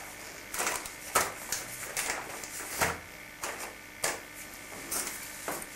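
Wrapping paper rustling and crinkling as a present is wrapped by hand, in short irregular crackles about once or twice a second.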